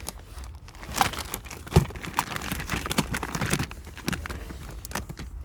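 Rummaging through a box of toy cars and packaging: irregular clicks and knocks with rustling and crinkling, and one louder knock a little under two seconds in.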